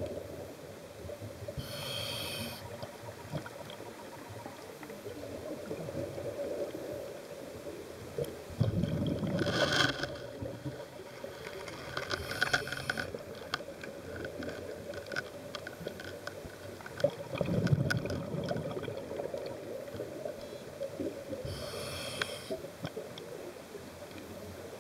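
Scuba diver breathing through a regulator: a hiss on the inhales near the start and near the end, and bursts of exhaled bubbles in between, over a steady low hum.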